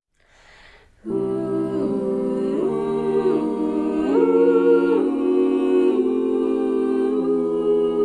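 Five-voice a cappella quintet (soprano, two altos, tenor and bass) entering together about a second in, after a faint hiss, and singing a wordless opening: sustained chords that move to a new chord about every second.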